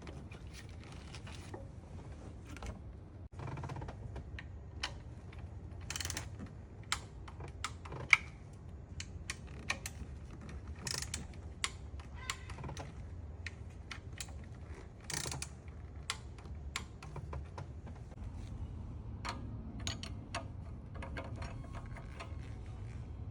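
Irregular light clicks and clinks of hand tools and parts being handled, with a few louder rattling scrapes spread through, over a low steady hum.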